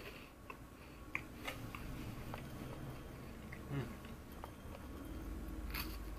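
A crisp Goya Maria sandwich cookie being bitten and chewed, with small crackles of chewing and a sharper crunch of a bite near the end.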